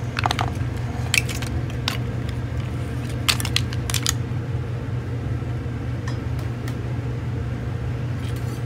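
Green mussel shells clattering as they are tipped from a bowl into a steel pot of boiling seafood broth: a handful of sharp clicks in the first four seconds, over a steady low hum.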